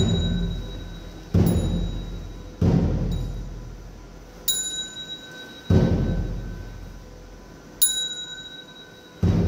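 Buddhist ritual percussion: a deep drum struck about five times at uneven intervals, and a bright bell struck three times, each ring lingering over the drum strokes.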